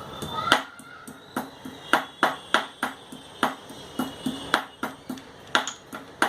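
A piece of fresh ginger being crushed with a pestle in a mortar: about a dozen sharp knocks, roughly two a second and unevenly spaced.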